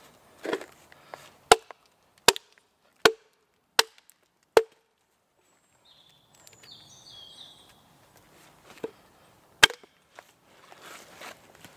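Hatchet chopping into a log: five sharp strokes about three-quarters of a second apart, then a pause and one more stroke near the end.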